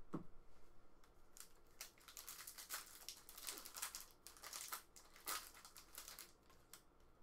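Stack of Topps Chrome baseball cards being handled and slid against one another in the hand: a faint, irregular string of short scratchy swishes.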